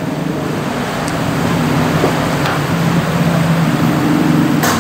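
Steady low hum and hiss, with a few faint clicks. Near the end comes one sharp clack as the Toyota Hilux's bonnet release is pulled and the latch pops.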